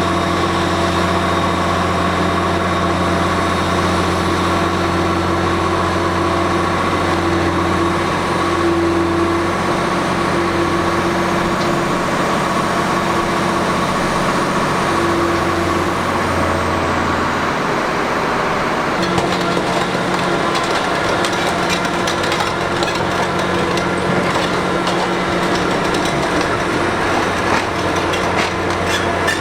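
Liebherr R 960 high-reach demolition excavator's diesel engine and hydraulics running steadily with a humming tone. A little past halfway the deepest part of the hum drops away, and soon after a rapid crackling clatter sets in.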